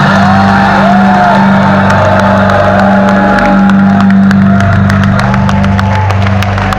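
Trance music playing loud over a concert sound system, with a held deep bass note under a gliding melody, and crowd noise mixed in. Sharp clicks or claps come in from about halfway through.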